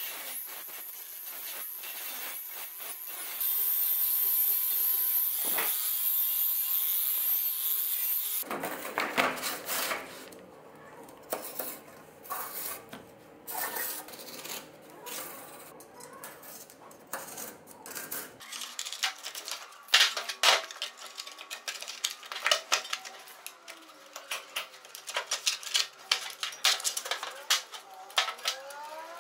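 Workshop tool work: a steady rasping, scraping noise for about eight seconds, louder after about three seconds, then a run of irregular clicks, knocks and clinks as parts and tools are handled.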